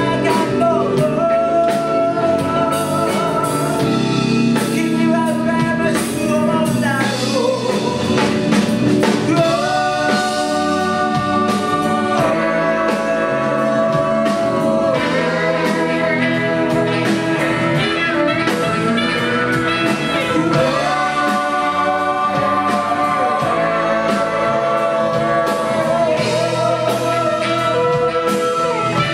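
Live rock band playing a song: a man singing over drum kit, electric guitar and bass, with a horn section of flute and saxophones playing held lines. Reverberant concert-hall sound.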